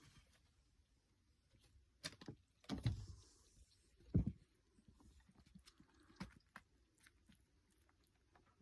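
A few soft thumps and scuffles from kittens pouncing on and tussling with a hat, the loudest a little after four seconds in, with faint light ticks and pattering around them.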